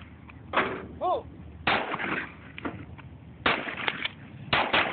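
9mm handgun firing 115-grain Remington jacketed hollow-point rounds: about five sharp shots at an uneven pace, the last two close together near the end.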